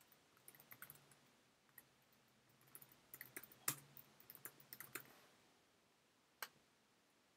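Faint computer keyboard typing: an uneven run of keystrokes lasting about five seconds, followed a little over a second later by a single mouse click.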